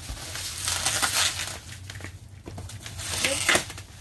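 Clear plastic stretch wrap crinkling and crackling as it is cut and pulled off a pallet of cardboard boxes, in two noisy spells with a short lull between.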